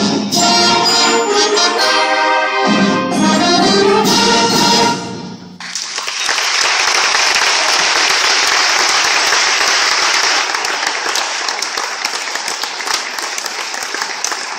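Student concert band of brass and woodwinds holding its final chords, cut off together about five seconds in and ringing briefly in the hall. Audience applause follows and continues steadily.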